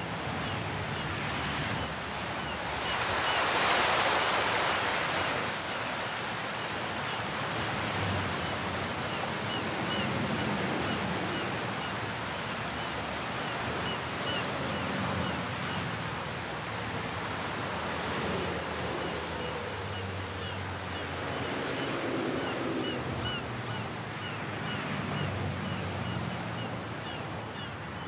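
Steady wash of ocean surf with wind, swelling louder about three to five seconds in.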